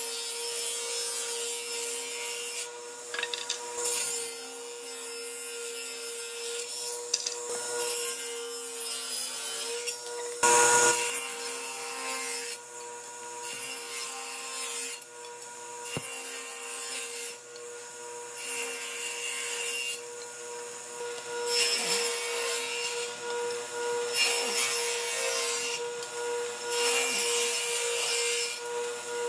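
Table saw running with a steady tone while its blade rips wood lengthwise: a bark-edged slab and then narrow strips. Each pass through the blade brings a loud, harsh rasping over the running saw, stopping and starting again several times.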